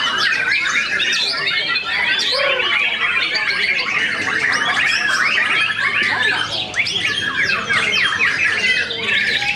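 Several caged white-rumped shamas singing at once in a dense, unbroken tangle of whistles, chirps and rapid trills, competing in a song contest.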